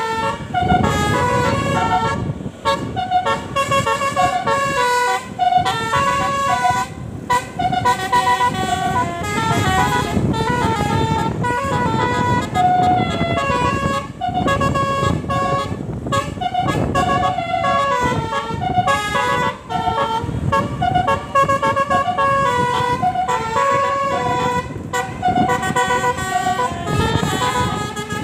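Basuri telolet multi-tone horn on a tour bus playing a fast melody of short stepped notes that hop between pitches several times a second, without a break.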